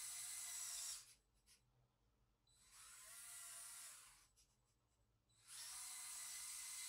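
High-pitched electric motor and gear whine from a remote-controlled LEGO Technic 6x6 truck model driving. It stops about a second in, runs again briefly in the middle, and starts up again near the end.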